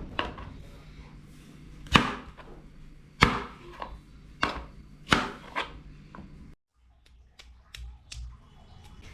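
Food being chopped with a knife, sharp single chops roughly a second apart. After a sudden break about two-thirds of the way in, a few fainter, quicker taps follow.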